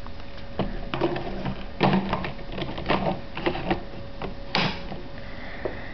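Plastic clicks and knocks of a Double Eagle M42 spring airsoft gun being handled, its all-plastic magazine pushed up into the grip, with one sharper click about two thirds of the way through.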